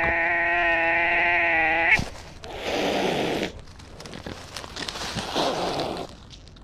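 Cat yowling in a long, steady caterwaul during a cat fight, cutting off sharply about two seconds in, followed by two hisses.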